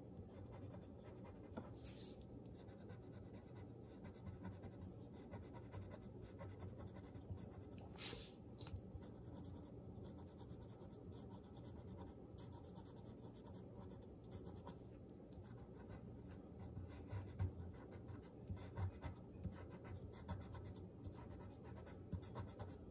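Small graphite golf pencil scratching faintly on paper in many short, irregular strokes, sketching the wispy branches of a pine tree, with a few louder scratches in the later part.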